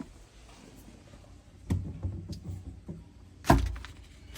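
Heavy thuds of manual demolition on a wall: four separate blows, the last two the loudest.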